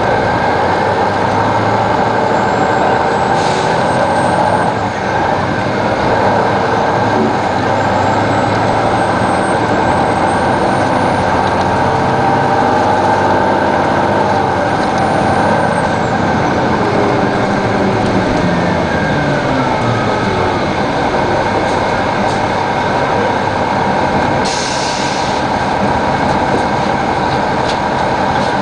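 Detroit Diesel Series 60 inline-six diesel of a 2002 Neoplan AN-460 articulated bus running under way, its pitch rising and falling as the bus changes speed through the Allison automatic transmission. A short hiss of air near the end.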